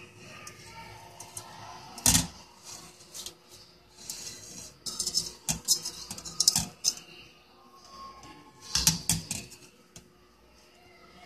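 Knife scraping the thorns off a prickly pear cactus pad held on a fork over a stainless steel mesh strainer: irregular metallic scrapes and clinks, loudest about two seconds in and again near nine seconds.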